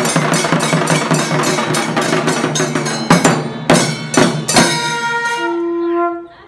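Chenda melam: a group of chenda drums, played with sticks, beats a fast, dense rhythm, which breaks about three seconds in into a few heavy closing strokes. After the last stroke, a ringing tone lingers and dies away near the end.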